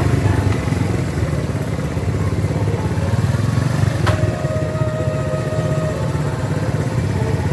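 Small motorcycle engine running steadily with a fast, even pulse, and a single sharp click about four seconds in.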